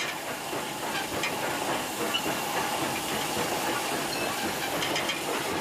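Steam locomotive hissing steadily as it lets off steam, with a few faint clicks.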